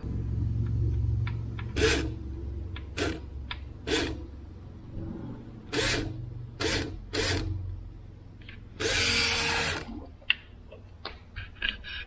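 Electric fuel pump of a 1984 BMW 733i humming as it runs on a jumper wire, with several sharp clicks and a second-long burst of noise about nine seconds in. The pump runs when fed directly, so the pump works and the fault is that no power reaches it.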